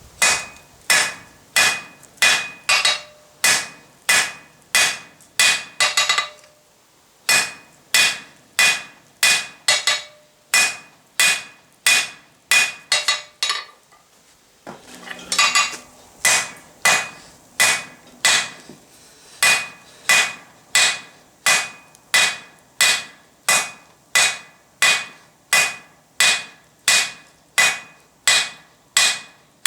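Hand hammer forging a 16mm square steel bar on an anvil, drawing it out to a taper. Steady blows about two a second, each with a ringing note, broken by two short pauses, about a third and about halfway in.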